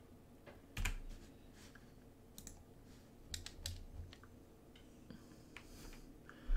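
Faint, scattered, irregular clicks from a computer mouse and keyboard, about nine in all, the sharpest about a second in.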